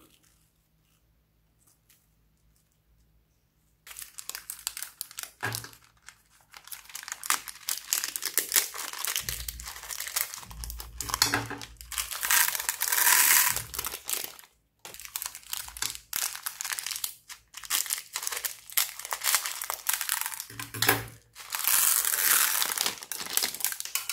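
Crinkling and crackling of a clear plastic bag packed with plastic beads as hands squeeze and work it open. It starts suddenly about four seconds in and runs on with a couple of short breaks.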